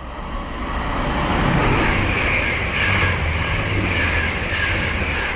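Two coupled class 185 diesel multiple units passing through the station: a steady rush of wheels on rails over a low engine hum, building over the first second and a half and then holding.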